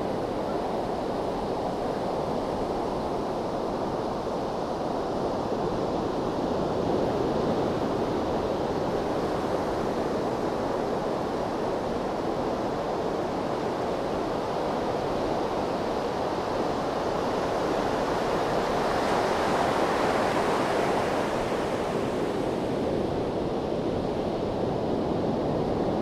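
Gentle ocean surf: small waves rolling in and breaking in a steady rush, swelling louder and hissier about three-quarters of the way through as a wave breaks.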